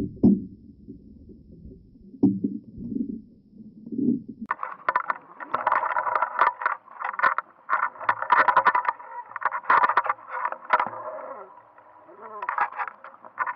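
Muffled underwater sound through a waterproof camera housing: a low rumble with a few knocks, switching about four seconds in to a dense crackle of sharp clicks and sloshing.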